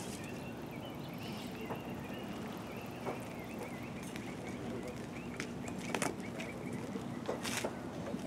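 Outdoor ambience: a steady low hum with faint birds chirping throughout, and a few sharp clicks, the loudest about six and seven and a half seconds in.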